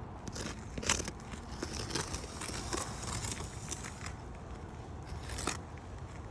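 Chalk scratching across asphalt roof shingles while an outline is marked, with irregular scuffs and crackles and a few sharper scrapes about a second in and again near the end.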